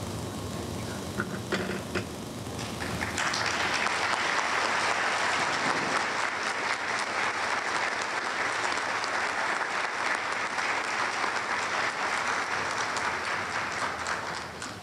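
A few scattered claps, then an audience bursts into applause about three seconds in; the clapping holds steady and dies down near the end.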